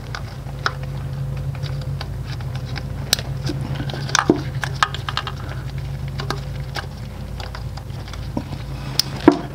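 Light clicks and rattles of plastic fuel injector electrical connectors being handled and pushed onto the injectors by hand, with one sharper click near the end, over a steady low hum.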